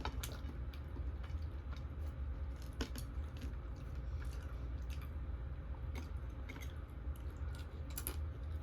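A person chewing food close to the microphone, with scattered small crisp clicks and squishes. A steady low hum runs underneath.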